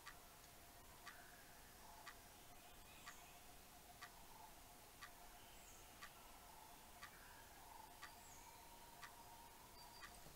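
Clock ticking steadily, about once a second, over faint room tone with a low steady hum.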